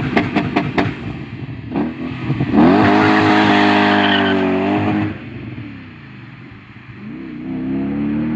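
Audi 4.2-litre V8 engine cranking briefly and catching. It is revved up about two and a half seconds in and held high for a couple of seconds, then falls back toward idle before being raised again near the end.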